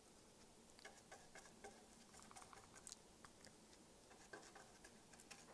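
Near silence, with faint, irregular small ticks and taps.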